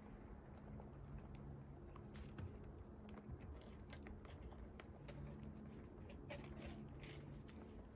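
Quiet, faint irregular clicks and taps from young white rabbits shifting and nibbling on the wire-mesh floor of a wooden hutch, over a low hum.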